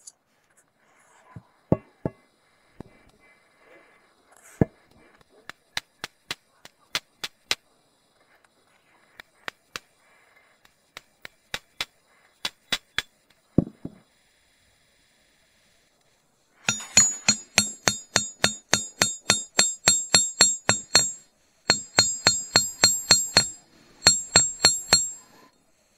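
Small hammer tapping a brass pin against the steel head of a pharsa axe: scattered single taps at first, then after a short pause a fast run of about four ringing metallic taps a second, broken by two brief stops.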